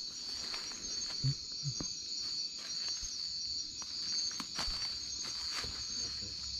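Night insects calling in a steady, high-pitched chorus, with a few soft clicks and taps scattered through it.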